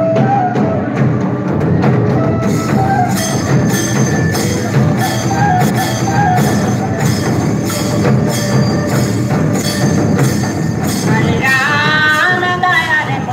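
Dance music with a steady drum beat under a melody; a singing voice joins near the end.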